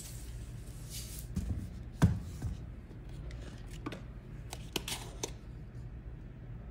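Salt poured from a shaker onto raw vegetables in a stainless steel pot, a brief hiss of grains, followed by a sharp knock about two seconds in and several light clicks and taps of kitchen containers a little later.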